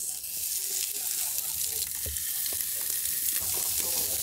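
Whole fish sizzling on a hot barbecue grill plate. The sizzle starts suddenly as the fish goes down and holds steady, with a couple of light knocks about two seconds in.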